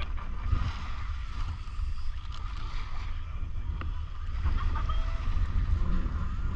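Wind buffeting the microphone, a steady low rumble, over a faint wash of small waves on a shingle beach.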